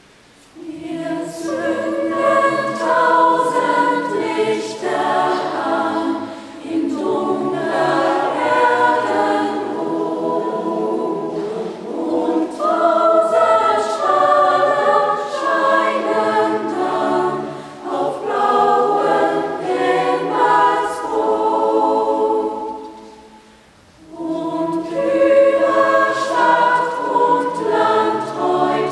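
A children's and youth choir singing in several voice parts. It starts about a second in, and there is a short break between phrases a few seconds before the end.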